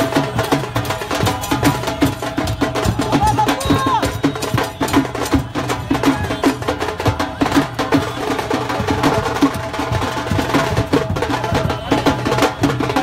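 Music driven by fast, sharp percussion: rapid drum strokes beating many times a second, with steady pitched melody lines above them.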